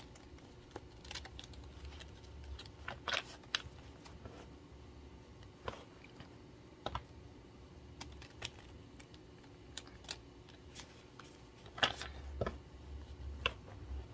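A deck of tarot cards being shuffled by hand: irregular soft clicks and slaps of cards against each other. There is a denser flurry about three seconds in and another near the end.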